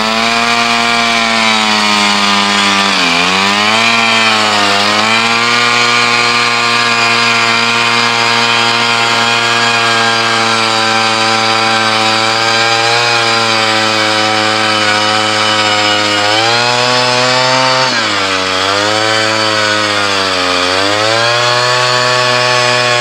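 Gas-powered ice auger's engine running hard as its bit bores into lake ice, with a steady pitch that sags and recovers as the engine bogs under load a few seconds in and several times near the end.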